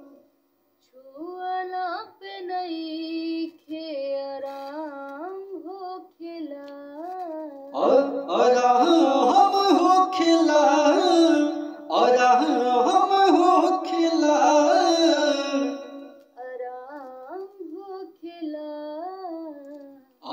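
A man singing long, drawn-out, ornamented melodic phrases with short pauses between them. The singing grows fuller and louder in the middle.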